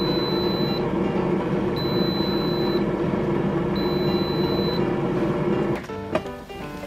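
Innsky air fryer beeping three times, long high beeps about two seconds apart, over its running fan, signalling that the cooking time is up. Near the end the fan drone cuts off and the basket is pulled out with a short clatter.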